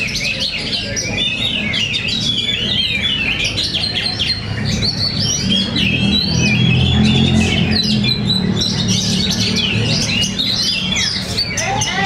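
Several caged oriental magpie-robins singing at once, competing in a songbird contest: a dense, overlapping stream of rapid whistles and chattering phrases. Under it runs a low background rumble.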